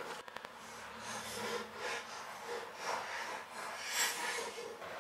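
A man breathing hard through his nose in slow breaths about a second apart while he strains at a brake line fitting, with faint rubbing of a wrench and a click at the start.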